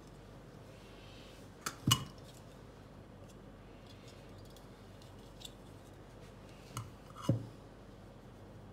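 Two pairs of sharp clicks and knocks, about two seconds in and again about seven seconds in, as small objects such as a tin and a ruler are handled and set down on a workbench mat; faint steady hiss between them.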